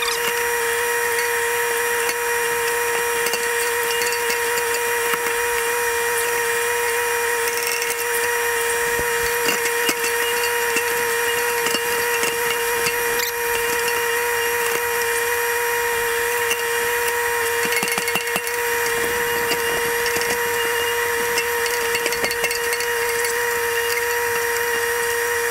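60-horsepower Kubota tractor-backhoe working: the diesel engine and hydraulics run with a steady high whine, with scattered cracks and knocks as the bucket digs at and pries on a tree stump's roots.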